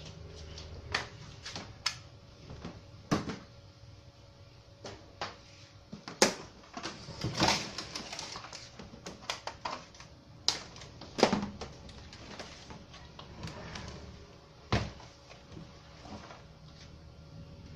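Plastic rear cabinet of a Sony Wega CRT television being handled and lifted off the set: scattered clicks and knocks, with loud knocks about six and eleven seconds in and a scraping rustle around seven to eight seconds.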